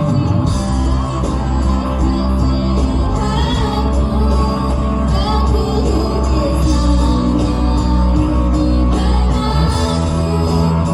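A choir singing a song with instrumental accompaniment and a strong, steady bass.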